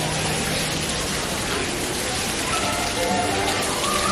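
Steady hubbub of a large indoor crowd chattering, with faint music underneath.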